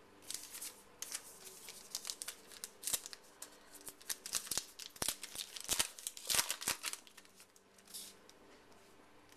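Trading cards and their packaging being handled: a dense run of crinkling, rustling and small sharp clicks that dies away about eight seconds in.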